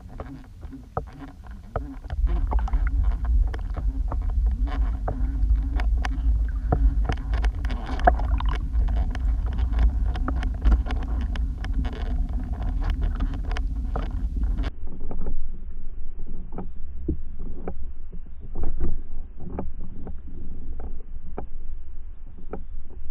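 Underwater sound picked up through an action camera's waterproof housing: a steady low rumble with many scattered sharp clicks and ticks. About fifteen seconds in, the rumble weakens and the higher sounds drop away.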